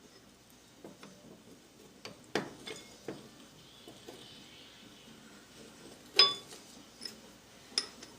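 Sparse metal clinks and knocks as a steel keyless drill chuck and hand tools are handled and turned, with the loudest, ringing clink about six seconds in.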